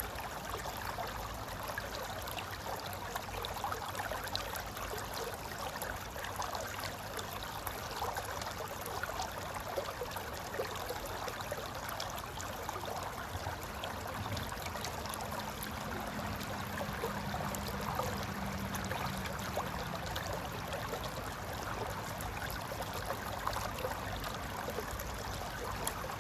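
Mountain river flowing steadily over rocks: a continuous rush of water with fine bubbling and gurgling throughout.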